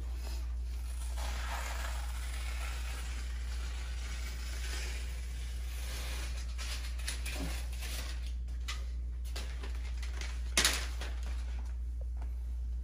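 Faint rustling and scraping of grasscloth wallpaper being handled and trimmed, over a steady low hum, with scattered small clicks and one sharp click about ten and a half seconds in.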